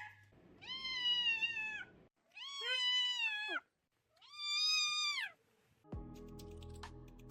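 A deaf cat meowing: three long, drawn-out meows of about a second each, with short gaps between them. Background music starts near the end.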